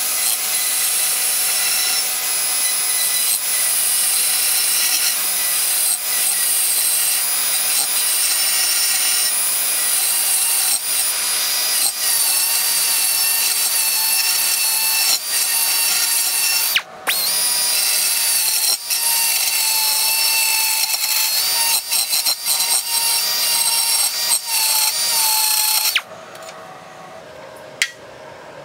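Carbide burr in a handheld rotary tool cutting into cast aluminum, a steady high whine whose pitch wavers as the burr loads and unloads, with intermittent chatter from pressing the burr too hard. It breaks off briefly about two-thirds of the way through and stops about two seconds before the end.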